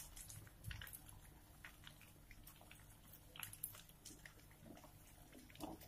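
Faint sizzling of sabudana vadas deep-frying in hot oil in a kadhai, with scattered soft crackles.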